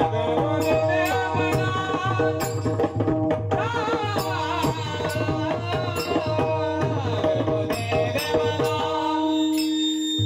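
Warkari devotional music: pakhawaj drum strokes in a steady rhythm under a melodic line and held notes, with sharp regular metallic strikes on top. Near the end the drum drops away, leaving a single held note.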